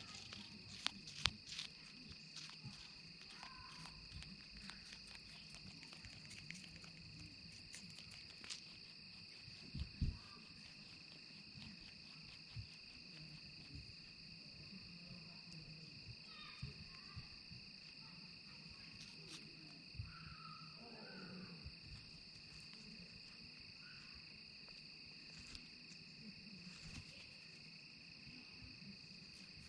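A steady, high-pitched chorus of insects on a late-summer evening. Over it come scattered close clicks and crunches from a wild eastern cottontail nibbling apple pieces beside the microphone, with a couple of sharper knocks about a second in and about ten seconds in.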